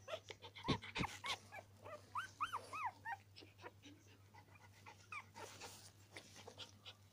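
Young Norwich terrier puppies squeaking and whimpering: short arching squeaks, a run of four about two seconds in and a few more later, among rustling of bedding and a couple of knocks about a second in.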